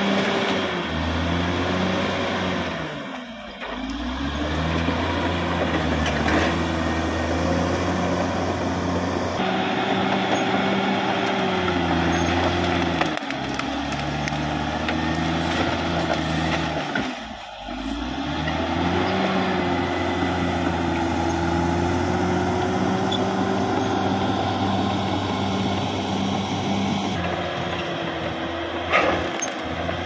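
Caterpillar D6R XL crawler bulldozer's diesel engine running under load while pushing brush and felled trees; the engine note sags and recovers twice, a few seconds in and again about halfway, as it lugs. A single sharp knock near the end.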